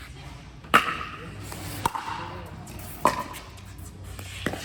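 Pickleball rally: paddles striking the plastic ball, four sharp pops roughly a second apart, the first the loudest.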